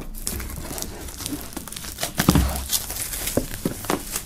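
Plastic shrink-wrap film crinkling and crackling as it is pulled off a cardboard box, with a dull thud about two seconds in.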